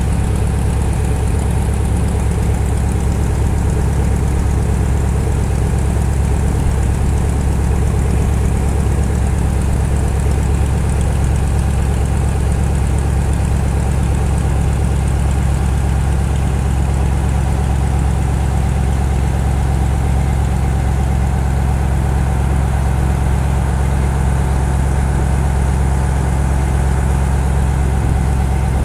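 Strizh-7 passenger motor boat's engine running steadily under way: a constant low-pitched drone.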